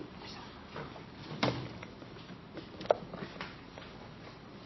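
Quiet room tone broken by a few scattered knocks and clacks of objects being handled, the sharpest about a second and a half in and another near three seconds.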